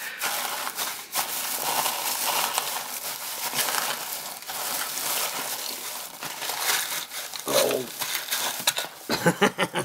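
Hands rummaging through crinkle-cut shredded kraft paper packing filler in a cardboard box: dense rustling and crinkling of the paper strands.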